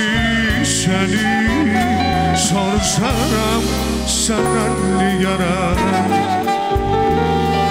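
A song playing: a lead voice singing wavering, ornamented lines over steady bass and a backing band, with a cymbal crash every second or two.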